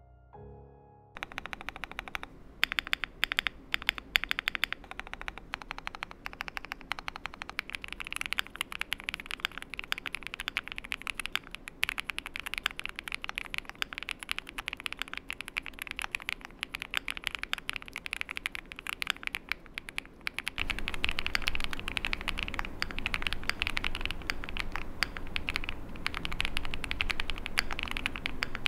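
Continuous fast typing on a CIDOO V75 PLUS gasket-mounted mechanical keyboard, a dense run of keystroke clacks damped by a flex-cut plate, a thick Poron gasket and plenty of internal foam. About 20 seconds in, the pickup switches from a close studio microphone to the camera's own microphone, which adds more low-end body and room rumble.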